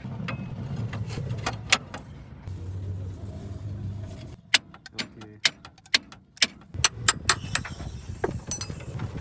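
Irregular sharp metal clinks and knocks of tools striking and handling steel parts, some ringing briefly. Under them runs a low rumble that stops about four and a half seconds in.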